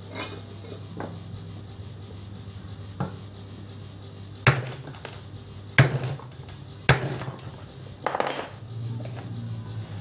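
Hammer blows struck through a wooden block onto a washing machine gearbox, driving it loose from the tub's triangular mounting flange where it has seized after years without being taken apart. There are a few light knocks, then three loud blows spaced about a second apart and a quick flurry of hits near the end.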